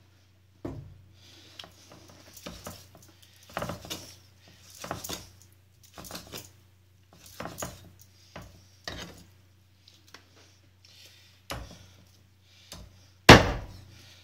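A cleaver cutting raw chicken on a wooden chopping board: irregular knocks of the blade meeting the board, with one much harder chop near the end.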